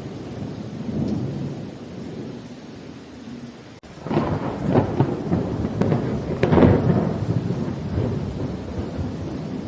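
Steady rain with rolling thunder: a low rumble, then about four seconds in a louder, sharper thunderclap that peals for a few seconds and fades back into the rumble.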